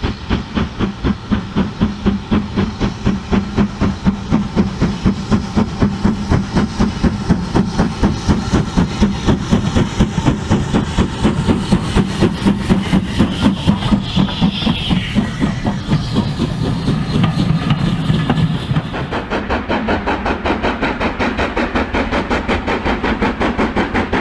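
Steam locomotive chuffing in a steady rhythm, about three beats a second, the sound of a model LMS Black Five 4-6-0 hauling a passenger train, with a burst of steam hiss around the middle.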